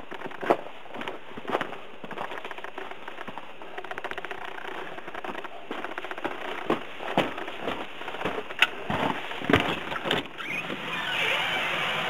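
Wind rushing and buffeting on the microphone, with scattered knocks and crackles. The rush grows louder and steadier about eleven seconds in.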